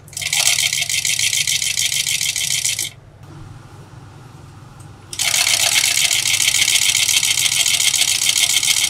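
Furrier's overedge sewing machine running fast, stitching in two runs with a fast, high rattle, stopping for about two seconds in between.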